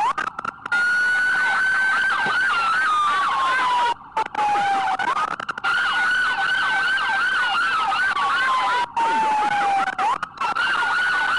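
Several emergency vehicle sirens sounding at once: a slow wail that sinks gradually and then sweeps back up about every five seconds, over a fast yelping siren. The audio cuts out briefly a few times.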